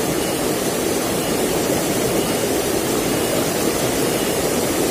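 Fast, shallow river water rushing steadily over and around rocks.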